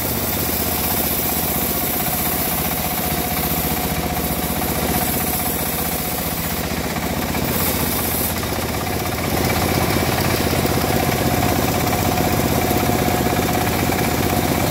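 A small engine idling steadily, a little louder from about nine seconds in.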